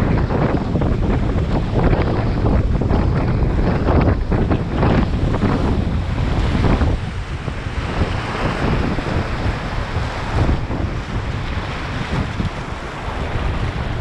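Whitewater rapids rushing and splashing around and against an inflatable packraft, in irregular surges, with a heavy low rumble of buffeting on the microphone.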